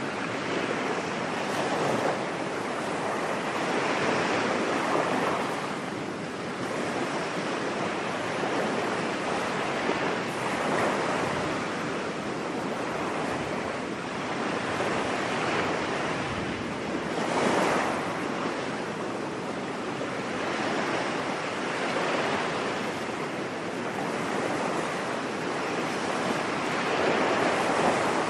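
Ocean waves breaking and washing on a beach, a continuous surf rush that swells and ebbs every few seconds, with one stronger wave about two-thirds of the way through.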